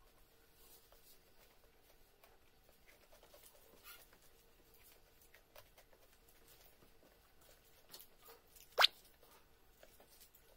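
Quiet eating by hand: faint, scattered soft clicks and taps of fingers picking at rice and fish on a plate. About nine seconds in comes one short, sharp squeak that rises quickly in pitch, much louder than the rest.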